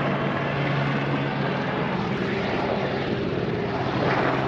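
Police helicopter flying over, its engine and rotor giving a steady, unbroken sound.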